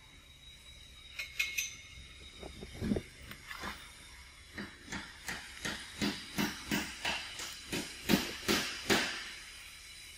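A rapid run of sharp knocks, about three a second, with a few scattered knocks before it; the loudest come near the end.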